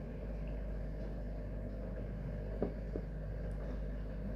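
Steady low background hum with two soft knocks, about two and a half and three seconds in.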